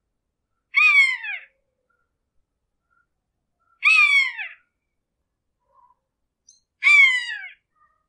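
A hawk screeching three times, about three seconds apart; each scream lasts under a second and falls in pitch.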